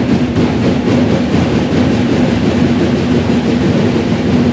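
Loud, steady crowd noise from spectators at a basketball game, heard as a dense rumbling din.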